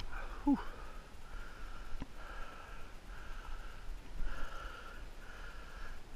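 A person's breathing close to the microphone: repeated breaths and sniffs about once a second. About half a second in there is a short falling whine.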